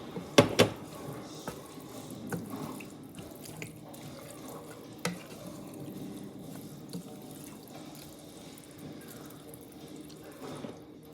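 Kitchen tap running water into an emptied pasta sauce jar to rinse out the last of the sauce, with two sharp knocks of the jar about half a second in and another around five seconds.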